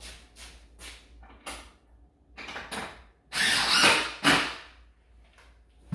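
Wooden table parts being handled and rubbed against each other: several short scraping strokes, then louder, longer scrapes about three and a half seconds in.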